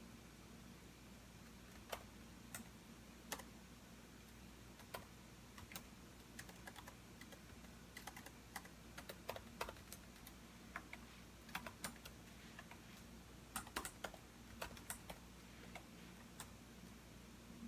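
Typing on a computer keyboard: irregular key clicks, a few scattered strokes at first, then quick runs of typing through the middle, over a faint low hum.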